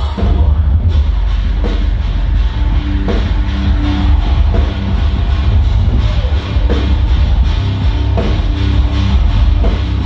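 Metalcore band playing live and loud: pounding drum kit and heavy distorted guitars over a booming low end.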